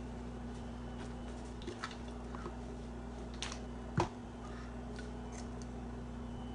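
Steady low room hum with a few faint clicks and taps, the sharpest and loudest one about four seconds in.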